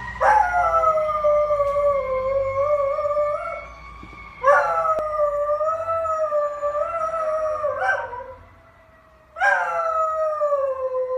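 Dog howling along with a fire truck siren: three long howls, each rising and then sinking and wavering. The siren is faint behind the first howl.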